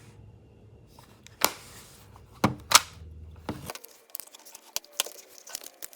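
Plastic buttons on a digital kitchen-timer meat thermometer being pressed and handled: a few sharp clicks, the loudest near the middle, then a run of lighter, quicker clicks.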